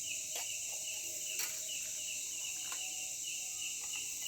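Forest insect chorus: a steady high-pitched insect hiss with a cricket-like chirp repeating about three times a second. A couple of faint clicks, near the start and about a second and a half in.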